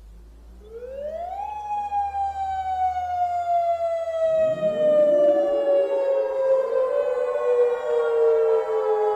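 Civil defense sirens: one siren winds up in pitch over about a second, then slowly falls. A second siren starts winding up about four seconds in and overlaps it, over a low hum.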